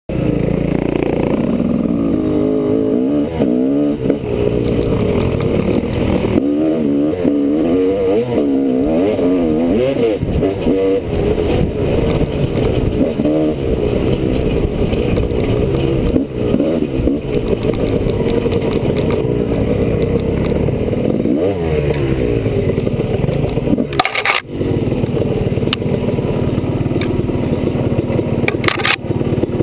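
Honda CR250R's single-cylinder two-stroke engine being ridden on a trail, revving up and dropping back over and over as the throttle is worked. Two sharp knocks cut through near the end.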